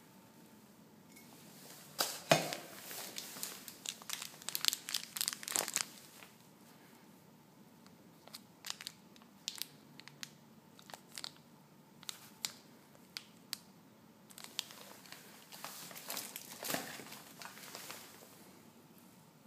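Thin clear plastic bag crinkling as it is handled: bursts of rustling and crackling, with single sharp crackles between the bursts.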